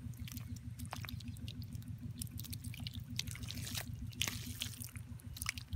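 Small engine-driven water pump running with an even, steady pulse, over scattered wet clicks from the mud. From about three seconds in, a jet of muddy water splashes against the mud bank with a hissing wash.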